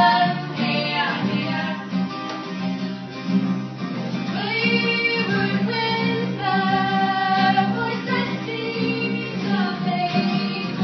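Live acoustic song: a woman singing a melody with held notes over plucked and strummed acoustic guitar.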